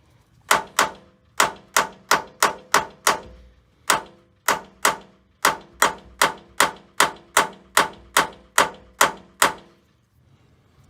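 Hammer striking a punch tool to drive a rusted, stuck metal door hinge liner out of a Jeep Wrangler JK hinge: about two dozen sharp, ringing metallic blows, roughly three a second, that stop shortly before the end.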